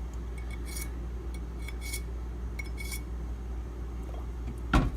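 Light, scattered clinks and taps of knives and sharpening gear being handled on a hard surface, with a louder knock near the end, over a steady low hum.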